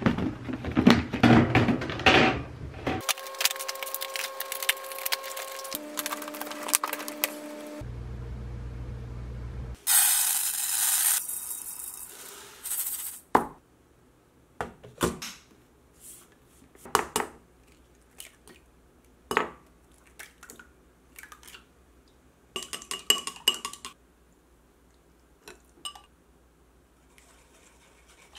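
Kitchen handling sounds: clatter of a plastic storage box being handled, a few seconds of steady hiss, then scattered knocks and clinks as a rice cooker's inner pot and dishes are picked up and set down on the counter.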